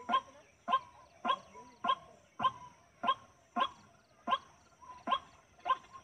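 White-breasted waterhen calling: a very regular series of short, sharp notes, a little under two a second.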